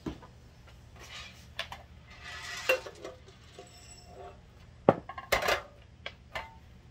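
Small plastic aroma beads rattling and sliding as they are poured out of a metal cake pan, followed about five seconds in by a sharp knock and a clatter of the metal pan being handled and set down.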